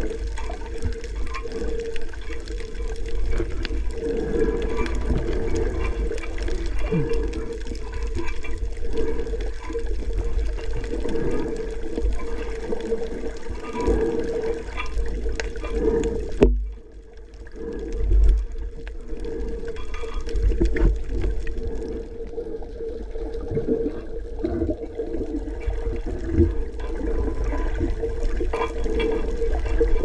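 Muffled water sloshing and surging against a camera in the sea while snorkeling, with a steady low rumble. A little past halfway the sound suddenly drops and turns duller for about a second before the sloshing resumes.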